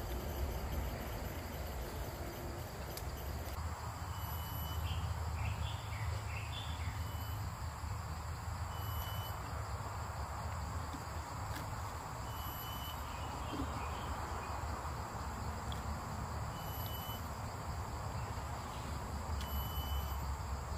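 Forest ambience: a steady high insect drone, with a bird giving short high whistled calls every few seconds, over a steady low rumble.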